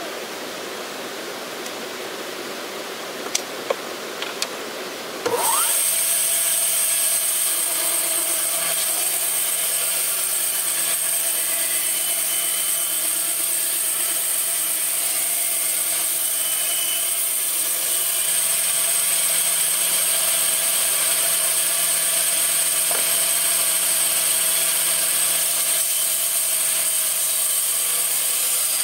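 Large sawmill band saw cutting a log lengthwise. A quieter hiss with a few sharp knocks comes first; about five seconds in, the sound suddenly turns louder as the blade bites into the log. It then holds as a steady cutting sound with several held tones and a high hiss.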